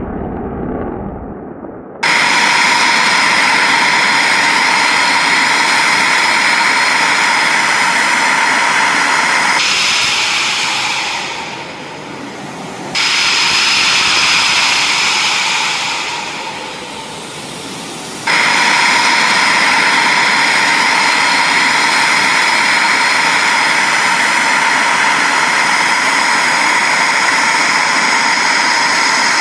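Fighter jet engines running with a steady high-pitched whine. The level jumps abruptly several times and dips quieter twice.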